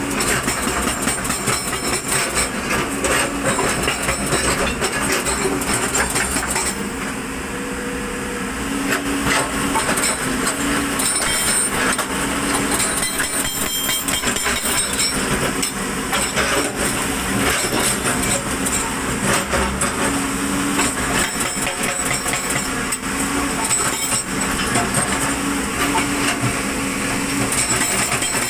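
Hydraulic rock breaker on a JCB tracked excavator hammering stone in rapid, continuous blows over the excavator's diesel engine running steadily. The hammering eases briefly about seven seconds in.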